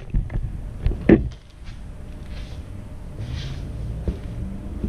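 Cardboard boxes and parts being handled: a few short knocks and thuds, the loudest about a second in, then a steady low rumble.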